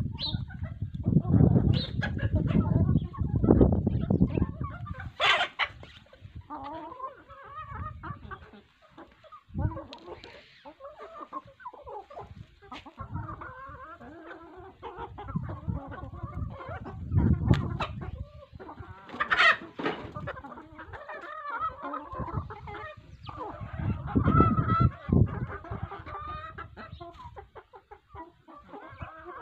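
A flock of domestic hens clucking and calling, with two sharper squawks about five seconds in and again near the twenty-second mark. Bursts of low rumble on the microphone come and go.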